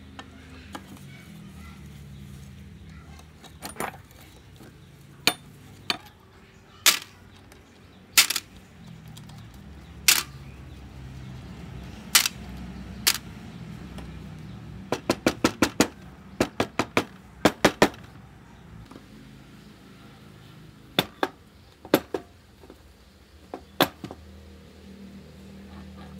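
Hand tools striking and clinking on metal engine parts: scattered sharp metallic taps, then a quick run of about a dozen light taps, roughly four a second, in the middle. A low steady hum runs underneath.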